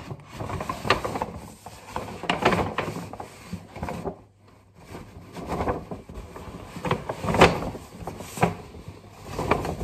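Handling noises: irregular clicks, knocks and rubbing as objects are moved about, with a brief lull about four seconds in.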